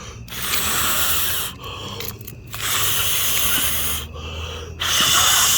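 Firework cake sputtering back to life in three loud bursts of hissing, each a little over a second long, with short gaps between them.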